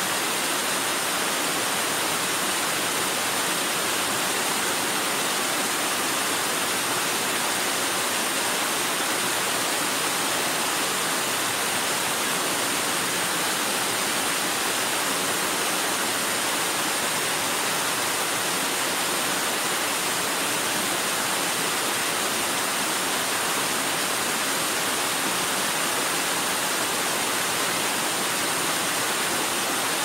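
Wide waterfall pouring over a rock ledge into a pool: a steady, even rush of falling water. A thin, steady high tone runs above it.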